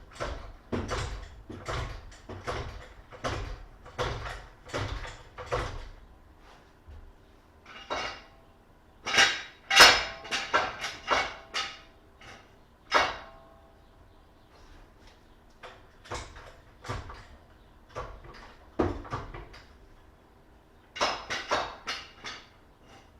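A run of metal knocks and clanks from wheel-change work, such as handling tools, a jack and parts. For the first few seconds they come steadily at about two a second, then give way to louder, irregular clattering in two spells.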